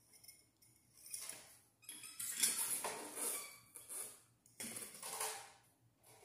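Electrical wires rustling and scraping as they are pulled through a metal ceiling-fan down rod, in four or so short bursts of handling noise.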